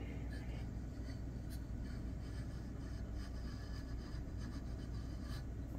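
Light scraping and rubbing as a Coleman Exponent 442 single-burner stove is turned by hand on a wooden desktop, its metal fold-out legs sliding on the wood, over a steady low hum.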